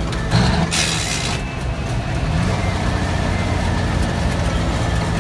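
Peterbilt 281 semi truck's diesel engine running steadily, with a burst of hissing about half a second in that lasts about a second.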